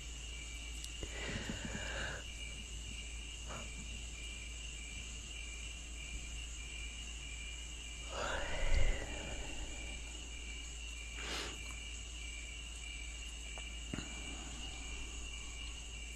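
A person yawning twice: once about a second in and again, louder, about eight seconds in. Each yawn is a breathy sound that rises and then falls. Behind them runs a steady high-pitched ringing, one tone of it pulsing evenly.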